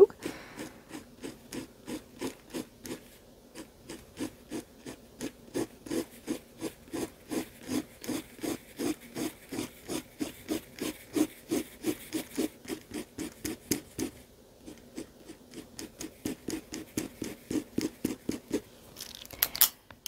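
Fine-tipped marker scratching across drawing-pad paper in quick short strokes, about three a second, with a couple of brief pauses.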